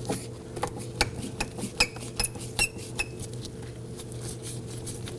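Light metallic clicks and clinks from a Phillips screwdriver working the door panel's screws out and handling them, a dozen or so in the first three seconds, two of them ringing briefly. A steady low hum runs underneath.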